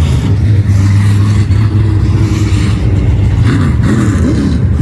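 Race car engine running loud under power, holding a steady note, then dropping and picking up again a few times near the end as the throttle is lifted and reapplied.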